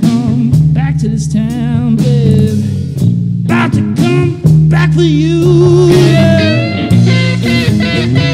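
Rock band playing an instrumental passage on electric guitars, bass guitar and drum kit, with a lead electric guitar playing wavering, bent notes over the rhythm.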